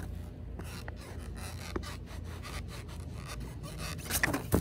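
Skateboard being kicked and popped for a kickflip on grass: a few sharp knocks near the end, the last one the loudest, over a low steady rumble with a few light ticks before them.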